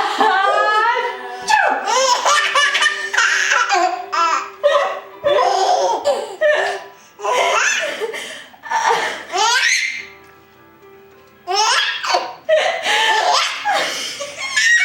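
Baby laughing hysterically in repeated bursts of belly laughs and giggles, with a short lull about ten seconds in.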